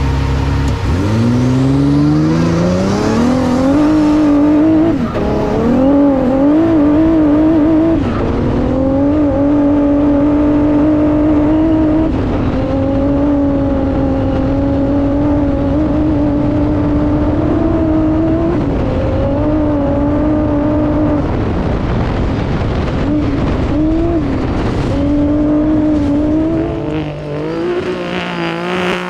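Honda Ridgeline trophy truck's twin-turbo V6 engine at full throttle, mostly heard from inside the cab. It pulls away about a second in, its pitch climbing quickly through the gears. It then runs hard at a steady, wavering pitch over rough dirt, with brief lifts and gear changes now and then.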